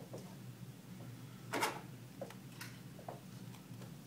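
A few light clicks and taps from small phone parts and tools being handled during an iPhone 4S teardown, the loudest about one and a half seconds in, over a steady low hum.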